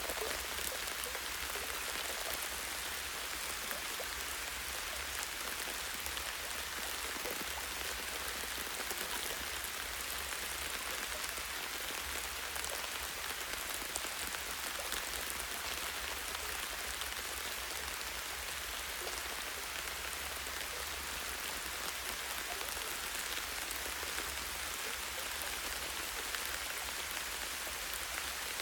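Light rain falling steadily, drops pattering on leaves and a tree branch, with many fine individual drop ticks over an even hiss.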